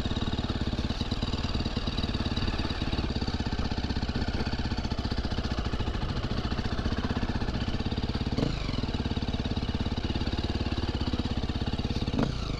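KTM motocross bike's engine running steadily at low speed with an even, fast pulsing, with two short rises in level about eight and twelve seconds in.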